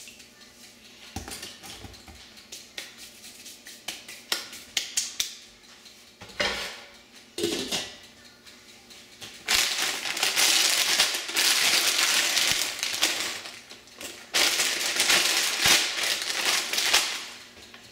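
Light clicks and knocks of a stainless steel pot lid being handled on a stove, then, from about nine seconds in, a long loud crinkling of a plastic bag of dry pasta being torn open and handled, with one short break.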